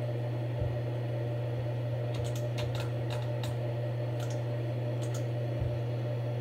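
Computer mouse clicks, a quick run of them a couple of seconds in and a few more later, over a steady low hum. There are two soft low thumps, one near the start and one near the end.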